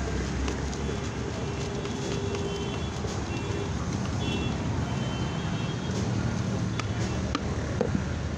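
Puffed rice rattling and crackling as it is shaken and tossed in a plastic bucket to mix it, over steady street traffic with engines running. A few sharp clicks near the end.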